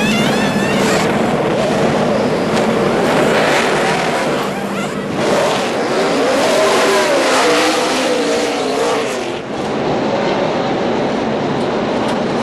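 NASCAR Cup stock cars racing at speed: loud, continuous engine noise, with engine pitch rising and falling as cars pass, most clearly in the middle of the stretch.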